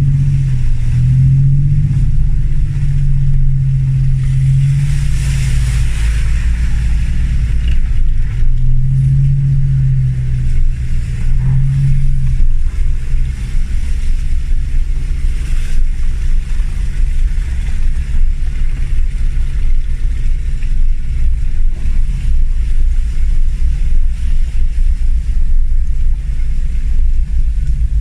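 Land Rover Discovery 1's 300Tdi four-cylinder turbodiesel engine, driven off-road. Its note swells and falls several times in the first twelve seconds, then settles into a steady low drone.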